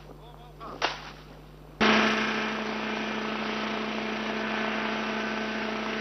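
Truck-mounted fumigation sprayer running with a loud, steady drone and hum that cuts in suddenly about two seconds in, after a stretch of faint background.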